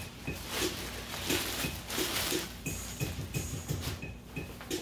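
Clear plastic bag crinkling and rustling in irregular bursts as a backpack is pulled out of it.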